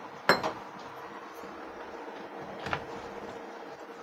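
Steel kitchenware knocking: one sharp clank about a third of a second in, a lighter knock just after, and a fainter click near three seconds, over a steady low hiss.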